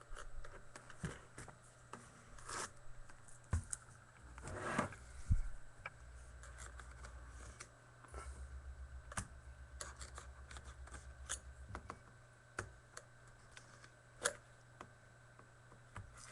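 Scattered clicks, taps and rustling as a trading-card briefcase box is handled and opened, with a longer rustle about four to five seconds in.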